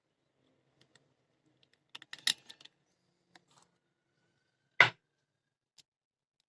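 Small metal clicks and taps of a nut and bolt being handled and fitted while bolting an amplifier IC to its heatsink: a short cluster of clicks about two seconds in and one sharp click near five seconds.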